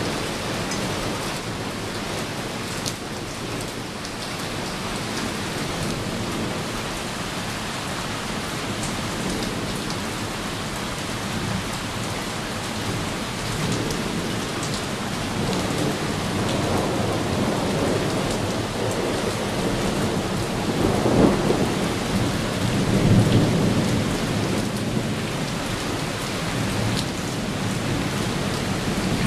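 Heavy thunderstorm rain falling steadily, with thunder rolling in about halfway through, loudest in two swells close together, then fading back under the rain.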